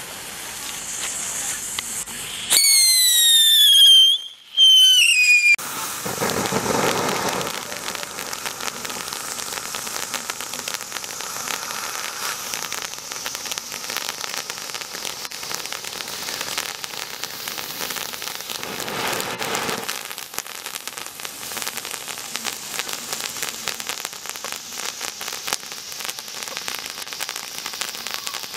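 Cat Mobile novelty ground firework burning: a hiss, then two loud whistles about two and a half and four and a half seconds in, each falling a little in pitch, followed by a long crackling hiss of spraying sparks.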